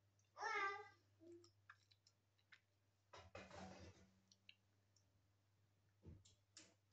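A young child's short high-pitched vocal sound, then scattered small clicks and a brief rustle as things are handled, over a faint steady hum.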